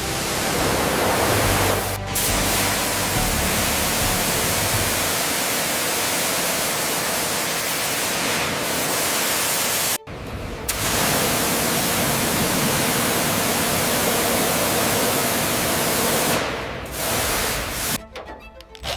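Loud steady hiss of spraying water or air, as from a pressure washer or air nozzle working on the car. It breaks off briefly about two seconds in and again about halfway, then stutters in short bursts near the end.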